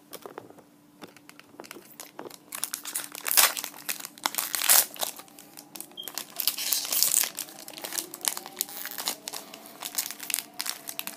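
Foil trading-card booster pack crinkling as it is handled and torn open by hand. It is quiet for about the first second, then turns into dense crackling, loudest around three to five seconds in.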